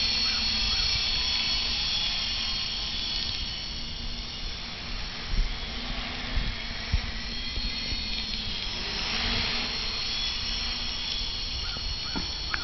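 Small homemade quadcopter's electric motors and propellers whining and buzzing steadily in flight, growing louder for a moment about nine seconds in.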